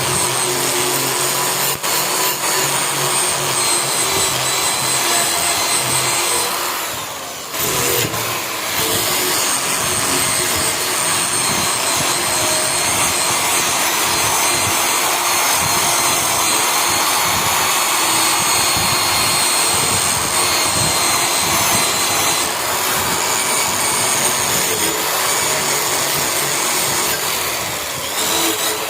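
Electric power tool running steadily as it works the steel knife blade, with a high whine over a rasping noise. The sound dips briefly about seven seconds in and again near the end.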